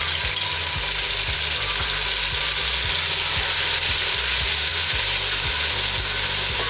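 Ginger-garlic paste sizzling steadily in hot oil with fried onions in an aluminium pot, stirred with a wooden spoon.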